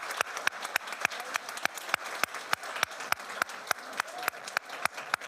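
Crowd applause: a roomful of people clapping, with one person's claps close to the microphone standing out sharply at about four a second.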